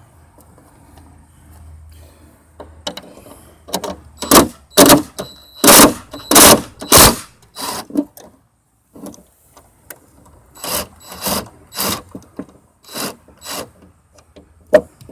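Hand ratchet wrench being worked on a hood hinge bolt: loud rasping strokes at about two a second, in two runs with a pause between.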